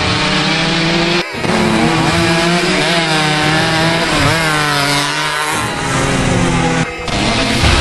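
Small two-stroke motorcycle engines revving up and down as the bikes race past, with two brief dips in the sound, about a second in and near the end.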